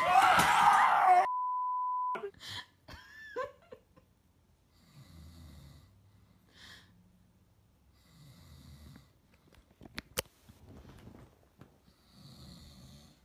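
A loud raised voice cut off by a steady one-pitch censor bleep in the first two seconds. Then a man dozing off sitting up, snoring in slow, deep rasping breaths about every three to four seconds.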